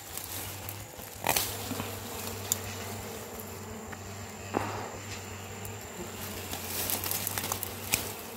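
Dwarf honeybees buzzing in a steady hum around their small disturbed comb. Three sharp clicks sound about a second in, midway and near the end.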